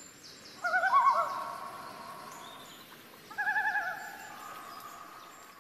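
Common loon giving its tremolo call twice, a quick wavering laugh-like warble that trails off into a held note, over faint forest ambience.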